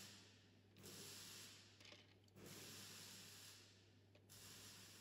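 Near silence: a person's soft breathing close to the microphone, rising and falling about every one to two seconds, over a faint steady low hum.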